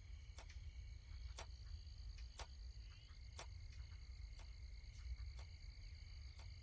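Faint ticking of a clock, one tick about every second, over the steady high chirring of night insects and a low hum.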